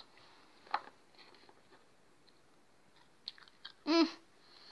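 Biting into and chewing a very hard, filled bubble gum: a few scattered small crunches and mouth clicks, with a short hummed vocal sound about four seconds in.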